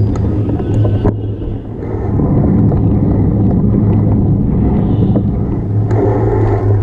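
Continuous rumble and road noise of a mountain bike being ridden, picked up through the body of a bike-mounted GoPro Hero5, with a steady low hum and a sharp knock about a second in as the mount jolts.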